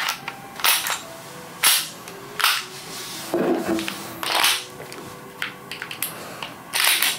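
WE Glock gas blowback airsoft pistol being put back together by hand: its metal slide and frame clicking and clacking into place. A string of separate sharp clicks, roughly one a second.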